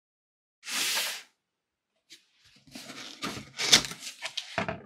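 A short burst of noise lasting under a second, then a cardboard carton being handled: irregular rustling, scraping and knocks, the loudest knock about three and a half seconds in.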